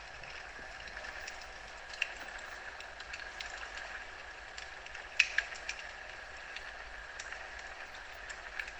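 Wood fire crackling in a fireplace: a steady hiss with scattered sharp pops, the loudest a quick cluster about five seconds in.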